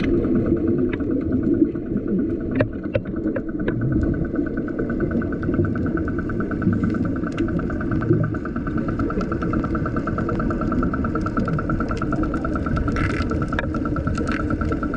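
Boat engine heard underwater: a steady, muffled drone with a fast even pulsing, and a few sharp clicks in the first few seconds.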